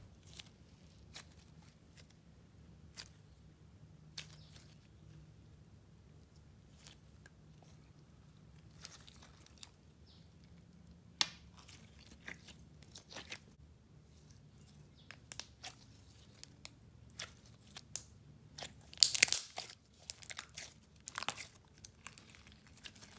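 Clear slime with fishbowl beads being squeezed and stretched by hand, giving scattered crunches and sharp clicks, busiest a few seconds before the end.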